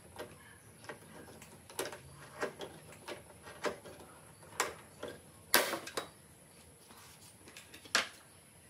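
Irregular clicks and taps of a screwdriver and hands against a metal desktop PC case as its side panel is held and fastened, the loudest knock about five and a half seconds in and another near the end.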